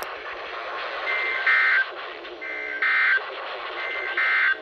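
Three short bursts of Emergency Alert System SAME digital data tones, warbling between two pitches, about a second and a half apart. Their shortness after the spoken message marks them as the end-of-message code closing the warning. A steady hiss runs underneath.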